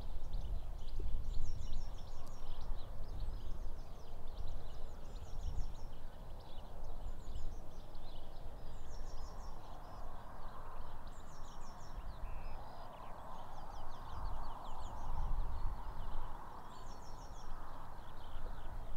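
Wind buffeting a Rode NTG2 shotgun microphone fitted with a foam cover and furry dead-cat windshield: a low, uneven rumble that is strongest in the first moment and comes and goes with the gusts. Small birds sing short, high, rapid trills over it every second or two.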